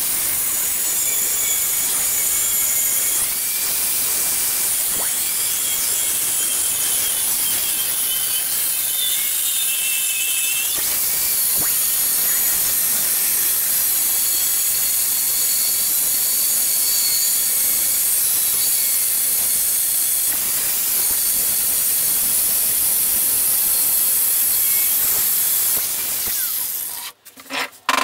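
Angle grinder with a thin cut-off disc cutting through a bar of O1 high-carbon tool steel: a steady, high-pitched grinding hiss with whining tones that shift a little in pitch. About a second before the end it stops, and a few clanks follow.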